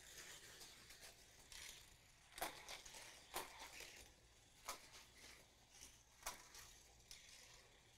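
Faint clacks and clicks of a Hot Wheels die-cast car running down orange plastic track and through kicker loops, a few separate knocks spaced about a second apart over a near-silent background.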